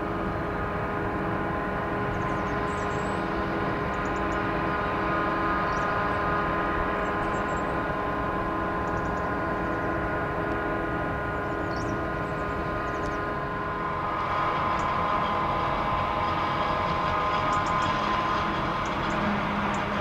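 Claas forage harvester and tractor working in a maize field: a steady engine drone with a high whine over it, growing a little louder about fourteen seconds in.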